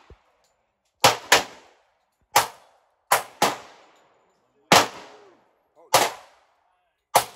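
Semi-automatic pistol fired eight times at an unhurried pace, in single shots and two quick pairs, each report sharp and followed by a short echo.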